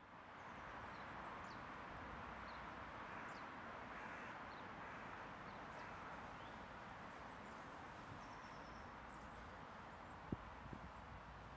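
Faint, steady outdoor background noise with scattered short, high bird chirps, and a single sharp tap about ten seconds in.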